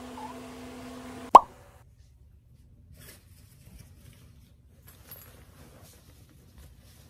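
A steady hum that stops at a single loud, sharp pop about a second in, followed by faint scattered clicks and rustles.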